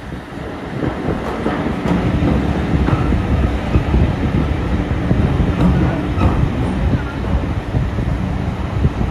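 Passenger train carriage running along the track, heard from on board: a steady rumble of wheels on rails with a few faint clicks, growing louder about a second in.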